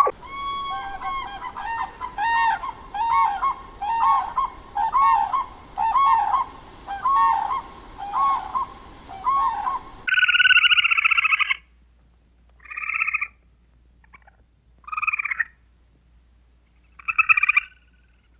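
A run of about a dozen short, pitched honking calls, repeated evenly at a little over one a second. Then come a common crane's harsh trumpeting calls: one long call, then three shorter ones with silent gaps between.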